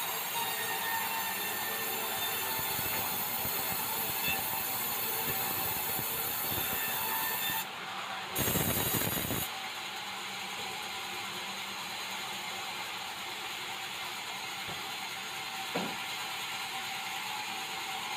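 Large sawmill band saw running as it rips a red meranti beam, a steady mechanical whine and rush. About halfway through a louder, deeper rumble lasts about a second, and near the end there is a single short knock.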